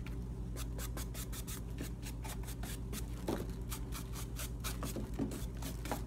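A paintbrush dabbing and scratching across a glitter-coated purse in quick, irregular short strokes, several a second, over a steady low hum.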